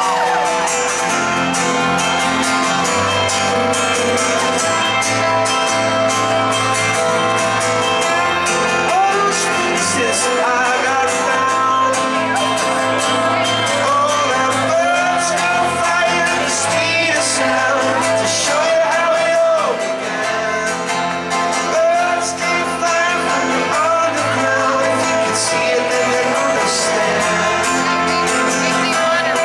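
A live band playing a song in a stripped-down arrangement: piano, acoustic guitar and bass guitar, with a voice singing over them.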